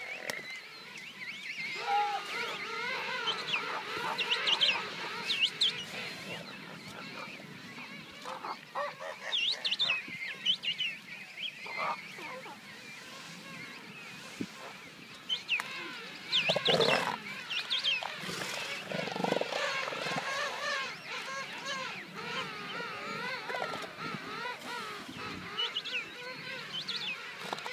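Bull southern elephant seals sparring and calling, their deeper calls loudest about two-thirds of the way in, over the constant wavering calls of a king penguin colony.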